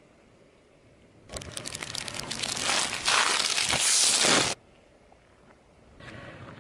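A car tyre crushing a tied plastic bag of marshmallows, the bag crinkling and crunching. It starts about a second in, builds for about three seconds and cuts off suddenly, as in reversed playback.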